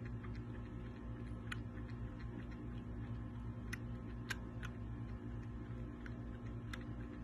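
Newborn kitten suckling from a milk bottle, its mouth making faint, irregular clicks on the nipple about every second, over a steady low hum.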